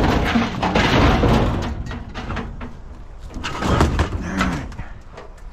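Scraping, clunking and clattering of metal scrap parts being handled and moved, with a loud scraping stretch at the start and scattered knocks after.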